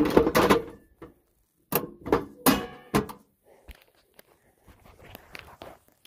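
Wood boiler being shut down: a loud clatter at the start, then several sharp knocks and clanks of its door and controls, one ringing briefly like metal.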